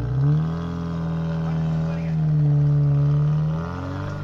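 Opel Frontera's engine revving under load as the SUV claws through deep mud ruts. The note rises quickly at the start, holds high and steady and is loudest in the middle, then drops briefly near the end before climbing again.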